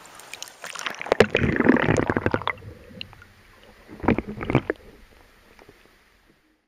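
River water splashing and gurgling around a microphone dipped at and just under the surface as a smallmouth bass is released: a burst of splashing about a second in, another shorter one around four seconds, muffled and bubbly, then fading away.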